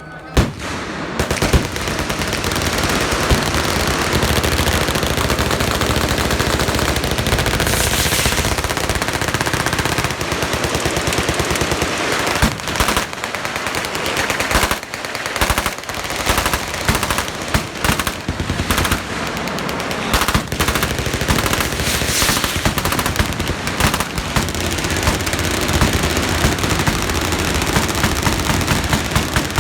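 Sustained machine-gun fire from a firing line: a nearly continuous rattle of rapid shots that starts with a sharp shot about half a second in and keeps going, with a few brief lulls.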